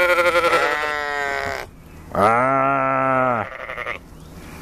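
Sheep bleating twice: a quavering bleat lasting about a second and a half, then a lower, steadier bleat about two seconds in.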